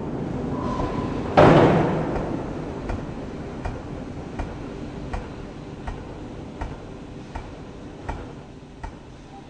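Pneumatic forging hammer: one heavy blast of noise about a second in, then light, evenly spaced ticks a little more than one a second that fade away.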